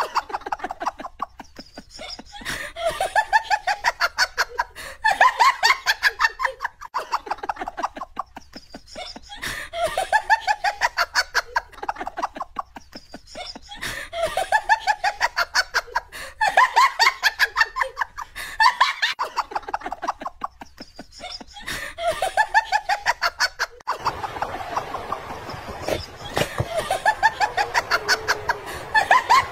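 A person's high-pitched giggling laughter in rapid bursts, the same bout coming back about every seven seconds as a looped laugh track. From about 24 seconds in it continues over a noisier background.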